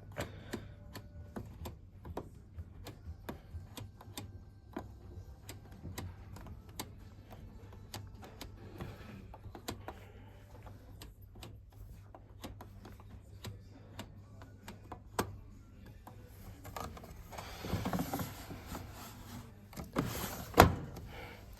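Irregular light mechanical clicks from a Zanussi front-loading washing machine being handled, with a louder sharp click and some rattling near the end.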